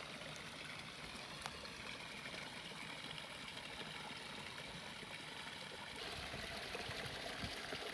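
Running water trickling steadily, a small stream or flow in shallow water, a little louder from about six seconds in.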